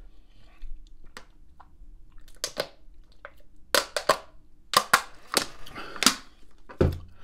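Drinking from a plastic water bottle: a string of loud gulps mixed with the thin plastic crackling as it is squeezed, ending in a low thump near the end.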